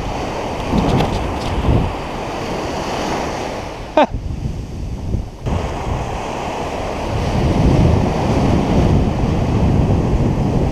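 Ocean surf breaking and washing up over the sand around the feet, with wind buffeting the microphone. A single sharp click sounds about four seconds in, and the wash swells louder in the last few seconds.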